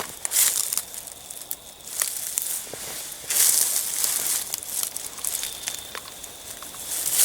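Footsteps crunching and rustling through dry leaf litter in uneven bursts, as someone walks slowly along a blood trail.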